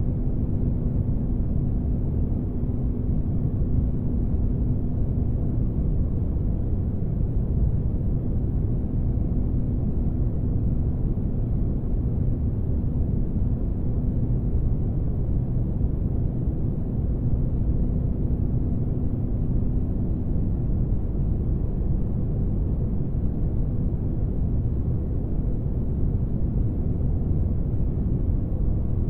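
Spaceship-interior ambience: a steady low rumbling drone with a faint hum over it. The hum drops out about six seconds in, returns around the middle, and fades again a little later.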